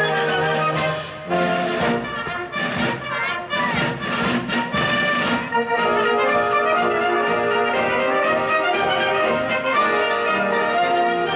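Brass band music by a military field music group: several brass parts playing sustained chords together. The sound thins briefly about a second in, then swells back into steady held chords.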